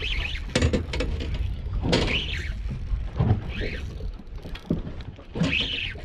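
Wind and water rumble on a small open boat, with clicks and knocks from a spinning reel being handled and wound, and a short high squeal that rises and falls about every two seconds.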